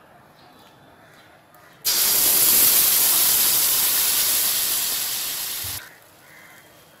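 Palm fruit juice poured into a hot aluminium kadai, hissing and sizzling loudly. The hiss starts suddenly about two seconds in, slowly fades, and stops abruptly near the end.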